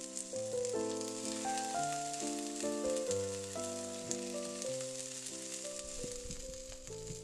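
Zucchini slices sizzling as they fry in olive oil in a frying pan, a fine steady crackle. Background music with a gentle melody plays over it.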